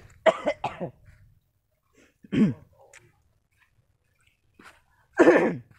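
A man's voice: three short spoken utterances, each falling in pitch, spaced a couple of seconds apart.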